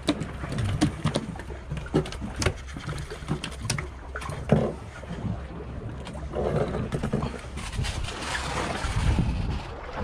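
Scattered clicks and knocks of a metal jig and hook being handled against a queenfish on a wet boat deck, over a steady low rumble of the boat and wind on the microphone.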